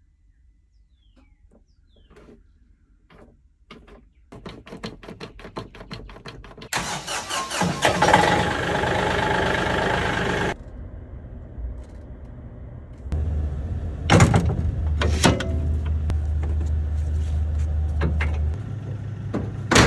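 Kioti NX5510 tractor that won't start with the key: a fast run of clicks as the key is turned, then a few seconds of loud harsh cranking noise that cuts off abruptly. Later, a steady low engine hum with two sharp metal clunks.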